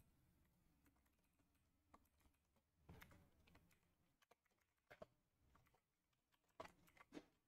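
Faint, sparse computer keyboard keystrokes: a single click about two seconds in, then short groups of clicks near the middle and near the end.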